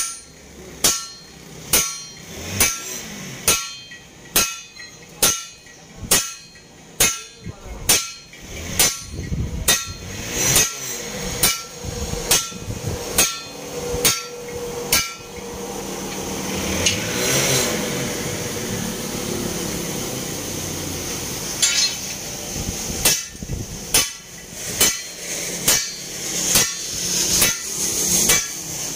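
Sledgehammer blows on a steel truck leaf-spring leaf on an anvil, some landing on a handled set tool held against the leaf. The blows come about one and a half a second, each with a bright metallic ring. They stop for several seconds in the middle, where a steady noise swells and fades, then resume.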